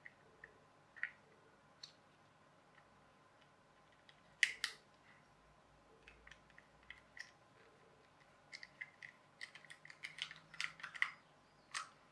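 Small plastic clicks and taps from a clockwork toy car's clear-plastic gear housing being handled and worked with a small screwdriver. A couple of sharp clicks come about four and a half seconds in, then a quick run of clicks near the end.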